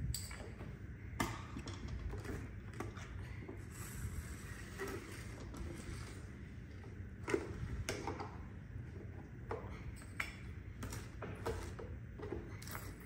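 Irregular light clicks and knocks of hands and tools on the plastic housing and parts of a Eufy 11s robot vacuum as a wheel module is worked loose, with a sharper knock about a second in and again about seven seconds in.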